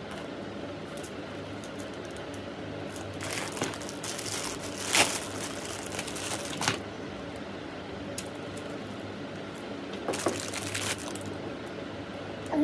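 Rustling and crinkling as something is handled, in two spells: about three seconds in for several seconds, and again about ten seconds in. A steady faint hum runs underneath.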